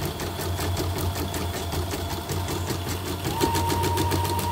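Portable embroidery machine, cover off, stitching a test design with a fast, even needle rhythm, running after its bobbin hook and broken timing belt were replaced. A steady high tone joins about three seconds in.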